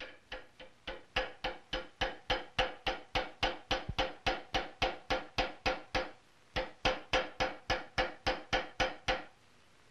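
Light, quick hammer taps on a small hand-forged iron rifle trigger, about four a second, each with a short metallic ring. They pause briefly a little after six seconds, then stop after about nine.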